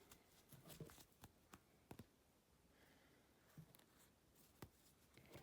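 Near silence with faint, scattered clicks and rustles of a crochet hook working thick cord, about six small ticks in all.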